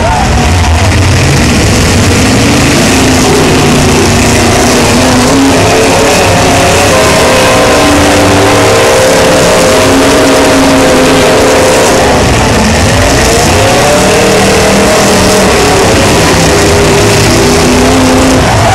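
Engines of several demolition derby cars running and revving together, loud throughout, with some pitches rising and falling around the middle.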